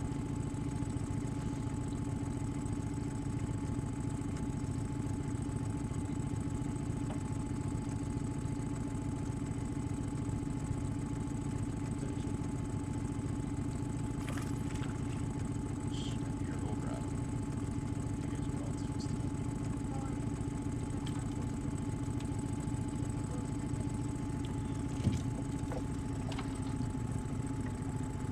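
An engine running at a steady, unchanging speed, with a few faint ticks and a single sharp knock near the end.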